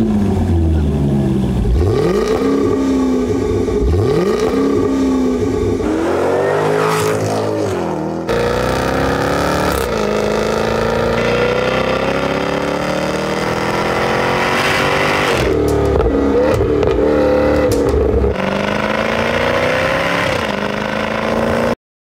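High-performance sports car engine revved in several sharp blips, the pitch shooting up and dropping back each time, then long pulls with the pitch climbing steadily under acceleration. The sound cuts off abruptly near the end.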